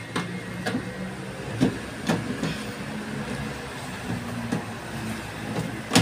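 Plastic clicks and knocks from the detergent-dispenser housing of an LG front-load washing machine being pushed and seated into the top of the cabinet, irregular and a few seconds apart, the loudest just at the end. A faint low hum runs underneath.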